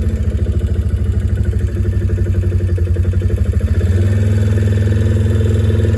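A small vehicle engine running steadily, with a pulsing beat that evens out to a smoother tone about four seconds in.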